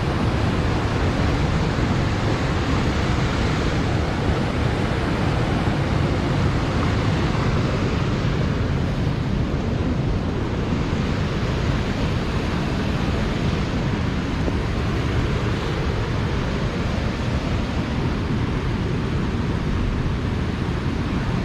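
Creek in flood, its water rushing past steadily in a loud, unbroken rush.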